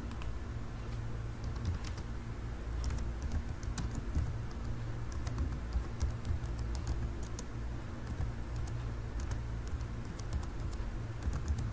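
Computer keyboard being typed on: irregular keystroke clicks in short runs, over a steady low hum.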